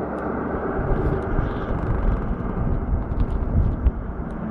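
Diesel test train hauled by a Class 31 locomotive passing, a steady low rumble of its engine and wheels on the track.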